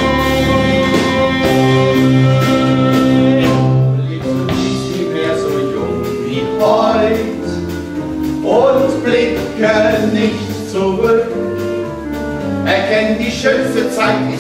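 Musical theatre song from a live band with keyboard, double bass and drums: a long sung note is held over sustained band chords, then about four seconds in the music changes to a livelier passage of voices singing over the band.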